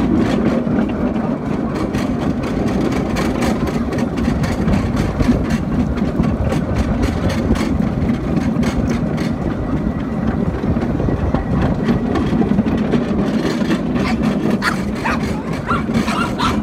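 Miniature ride-on park train running steadily along its track, heard from an open passenger carriage: a continuous low rumble from the locomotive and the wheels on the rails, with light clicking throughout.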